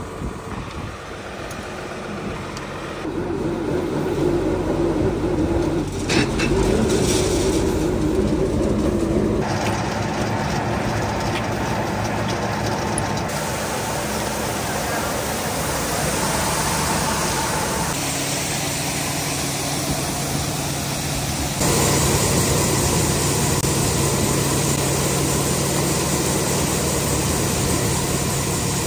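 Tractor engine driving a New Holland grinder-mixer through its PTO shaft while grinding corn: a steady mechanical din that changes abruptly in level and tone several times.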